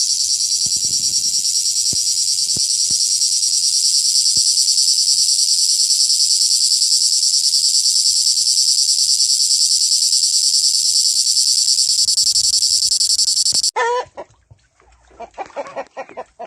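Cricket chirping in a loud, continuous, very fast high-pitched trill that cuts off suddenly near the end. It is followed by a chicken squawking once and then clucking in short, spaced calls.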